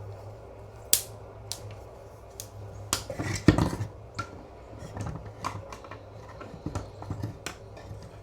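Scattered knocks and clicks of wooden boards and tools being handled on a workbench, with a cluster of louder knocks about three and a half seconds in. A low steady hum runs underneath.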